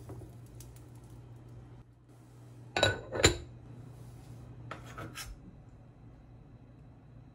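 A ceramic lid set down on a cooking pot: two sharp, ringing clinks close together about three seconds in, followed by a few lighter knocks.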